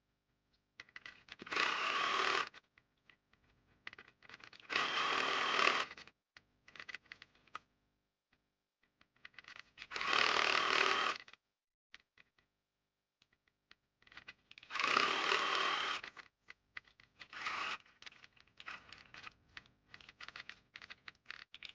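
Electric sewing machine stitching in four short runs of about a second each, with small clicks and rustles of the fabric and zipper being handled between runs, as a new zipper is sewn onto a jacket.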